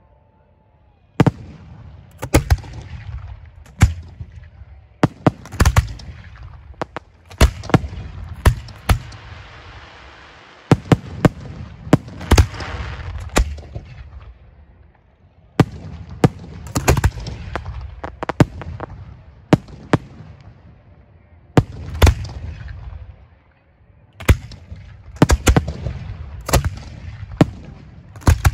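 Professional firework display shells firing from ground mortar racks: an irregular rapid series of sharp booms, the first about a second in, with a stretch of hissing about ten to thirteen seconds in.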